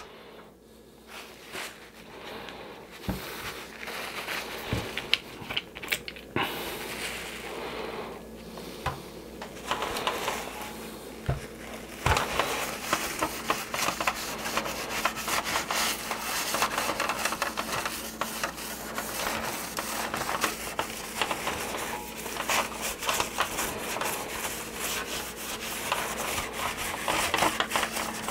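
A rag with baby oil rubbing and wiping over the plastic body of a 1983 G.I. Joe Skystriker toy jet, with a few small clicks and knocks as the toy is handled. The rubbing is patchy at first and becomes near-continuous from about twelve seconds in.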